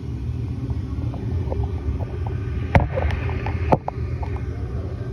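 Rheem gas furnace starting up: a steady low rumble from its motor, with two sharp clicks a second apart near the middle and a few faint ticks.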